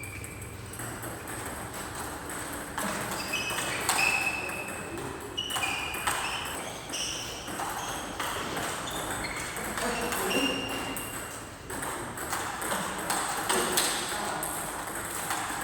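Repeated short, high squeaks with scattered sharp taps, typical of sports shoes squeaking on an indoor court floor during a racket-game rally.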